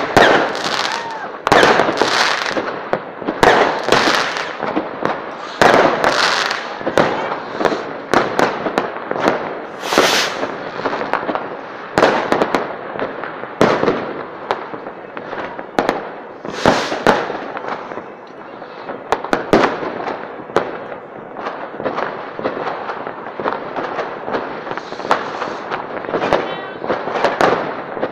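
Fireworks display: a continuous run of sharp bangs and crackling shell bursts, one to two a second, each trailing off in an echo.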